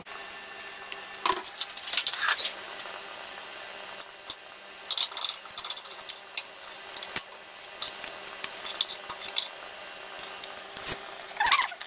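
Metal fork and spatula clinking and scraping against plates as baked salmon steaks are lifted and moved, in scattered groups of sharp clicks.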